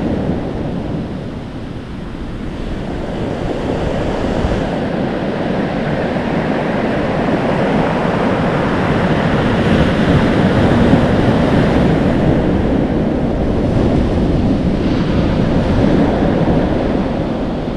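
Atlantic Ocean surf washing and foaming on the shore, with wind buffeting the microphone. The wash dips about two seconds in, then builds back up and swells.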